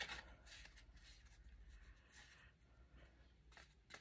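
Near silence with a few faint, brief rustles: a paper tag and its tie being handled as the tie is threaded through the tag.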